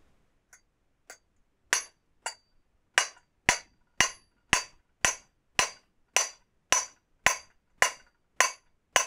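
Lead hammer striking the end of a Vortech supercharger's impeller shaft at about two blows a second, each with a short metallic ring. The first few blows are light, then they come harder and evenly. The blows are an attempt to drive the shaft out of its bearing, and it does not come free.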